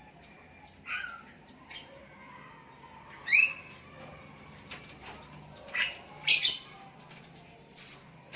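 Sooty-headed bulbuls calling back and forth in short bright whistled calls, one about a second in, one at three and a half seconds, and the loudest pair around six seconds, over fainter quick chirps.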